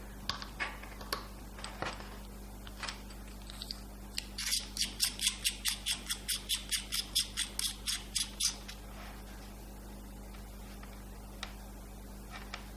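Handling of a BOYA BY-M1 lavalier microphone's battery module while the battery is fitted: a few small clicks, then a fast even run of scratchy clicks, about five a second for some four seconds, as the battery compartment is closed up.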